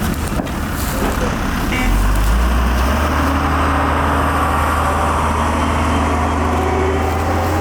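Heavy vehicle engine running, a low steady drone that grows louder about two seconds in and then holds.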